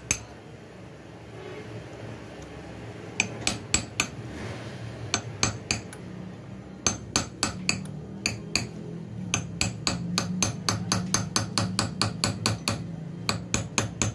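Light, quick hammer taps on a steel punch set against the edge of a broken screw in an air rifle's action, knocking it round to unscrew it while sparing the threads. The taps come in runs of about three or four a second, starting about three seconds in.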